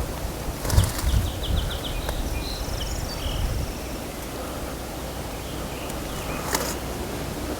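Outdoor field ambience: wind rumbling on the microphone, with small birds chirping, including a quick run of about six high notes a little after a second in. There are brief rustles about a second in and again near the end.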